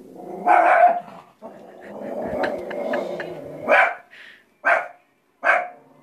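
Small shih-tzu dog barking at her own reflection in a mirror: one sharp bark, a longer growl, then three more barks close together near the end.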